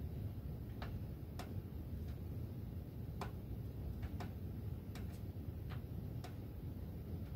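Metal ductwork ticking: sharp, irregularly spaced ticks, roughly one or two a second, over a steady low rumble.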